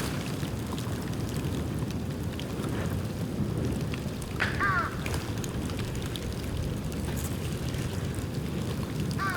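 Bonfire of dead bamboo burning, a steady low rush of flame with scattered crackles and pops. A brief high chirp sounds about four and a half seconds in.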